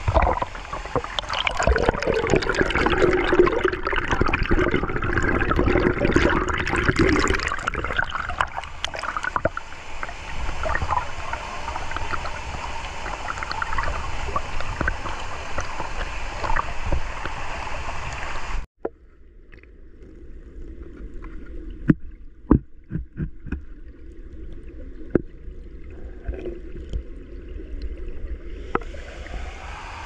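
Waterfall and stream water running loud and steady, then cutting off abruptly about two-thirds of the way through to a much quieter, muffled water sound with a few sharp clicks.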